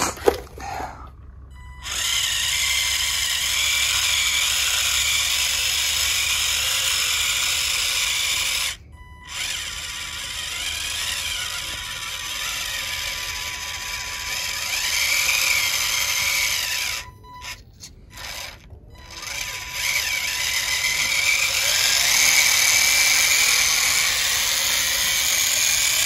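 Electric drive motors and gearing of a homemade remote-control model tractor whining under load as it tows a disc harrow through sand. The pitch rises and falls with speed, and the motors cut out and start again a few times.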